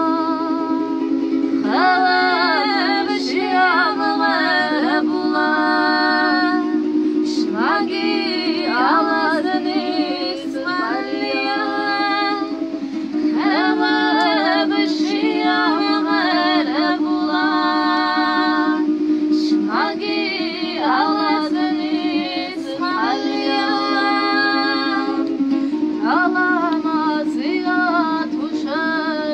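A woman singing a song in phrases with gliding ornaments. She accompanies herself on a small long-necked plucked string instrument, strummed steadily.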